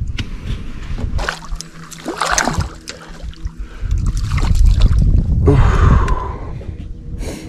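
Water lapping and sloshing against a bass boat's hull, with wind on the microphone that is strongest about halfway through. There are a few knocks from handling on the deck, and a sharp knock near the end.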